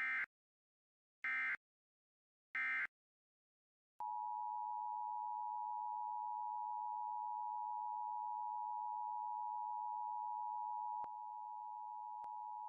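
Emergency Alert System end-of-message data bursts: three short, harsh digital bursts about 1.3 s apart. About a second after the last burst a steady alert attention tone near 1 kHz begins and holds, dropping slightly in level about seven seconds later.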